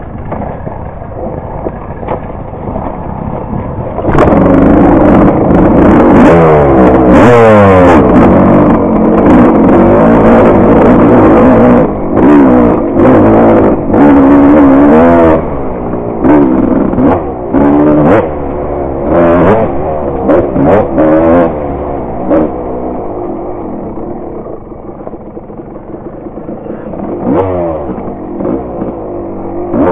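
Dirt bike engine under a rider on a trail: running at a lower level for the first few seconds, then from about four seconds in revving hard, its pitch climbing and dropping again and again as the throttle is opened and shut. It eases off past twenty seconds and revs up again near the end.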